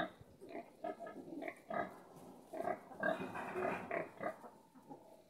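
Young pigs grunting in short, irregular grunts.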